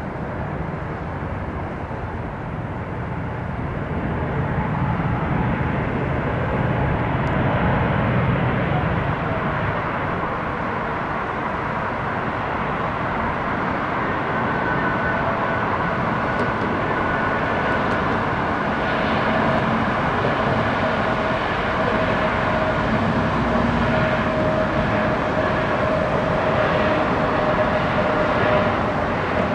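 Pratt & Whitney geared turbofan engines of an Airbus A320neo airliner during its landing: a steady jet engine noise that grows louder about four seconds in, with a whining tone that strengthens in the second half.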